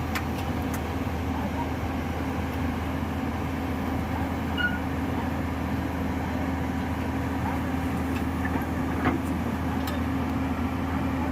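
Heavy diesel machinery at a quarry loading site running steadily, with a few short metallic knocks.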